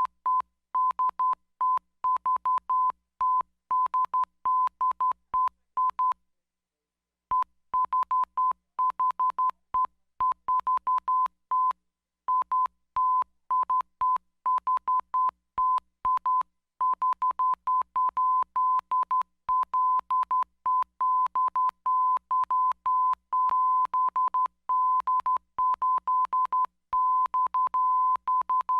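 Morse code sent as a single steady beep keyed on and off in short and long pulses, with one pause of about a second a quarter of the way in.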